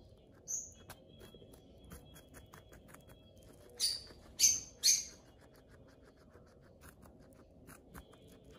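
A guinea pig chewing raw butternut squash: a steady run of small crunching clicks, about five a second. Cutting across it are three loud, shrill bird chirps in quick succession about four seconds in, with a fainter chirp about half a second in.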